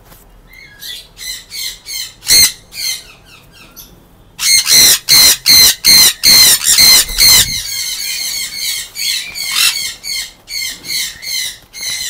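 Sun conures screeching: a run of short, harsh, piercing calls, several a second. The calls turn very loud and come close together from about four seconds in to about seven and a half seconds, then go on more softly.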